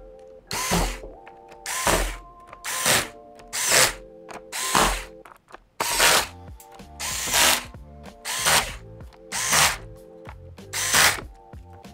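Electric screwdriver driving in a laptop's bottom-cover screws, running in about ten short bursts roughly a second apart, one burst per screw.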